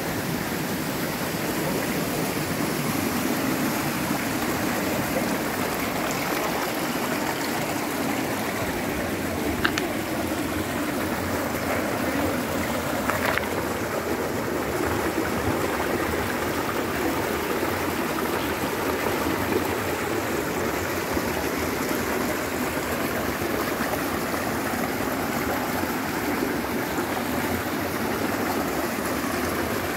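Steady rush of flowing water, with two faint clicks about ten and thirteen seconds in.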